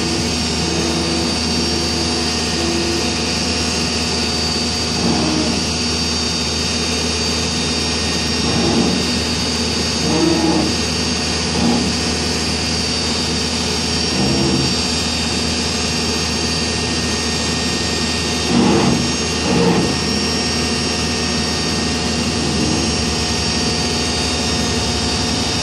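Backhoe's diesel engine running steadily, with short louder swells every few seconds.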